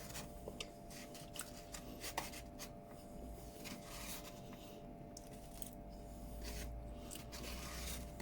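Faint eating sounds: cutlery scraping and tapping against a food container, a string of short scrapes and clicks over a low steady hum.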